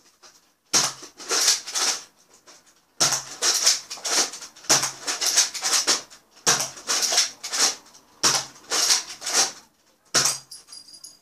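Nerf Modulus Recon Mk II rifle primed and fired six times in a row, one shot about every second and a half, each a clatter of the priming slide and the shot, emptying its six-dart load.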